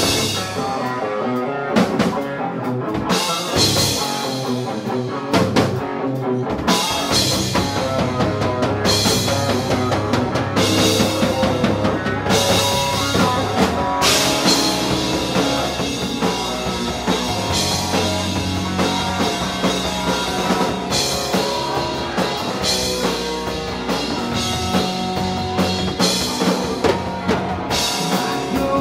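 Live rock band playing an instrumental passage: full drum kit with steady cymbal crashes, distorted electric guitar and bass guitar, heard loud through the bar's sound.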